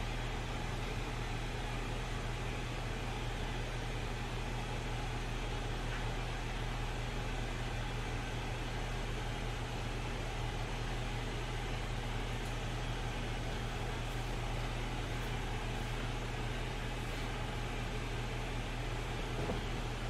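Steady low hum with an even hiss over it, unchanging throughout, like a fan, appliance or distant traffic; no bird calls stand out.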